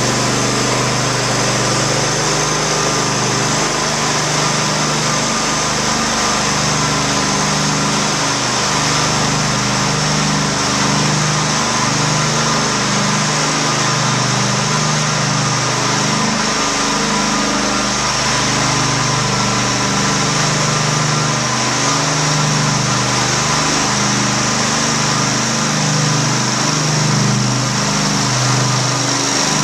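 Small engine of a propane-powered floor burnisher running steadily as its spinning pad is pushed over a tile floor.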